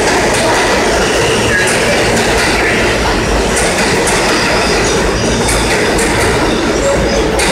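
New York City subway train noise in an underground station: a loud, steady rumble with short squeals and scattered clicks.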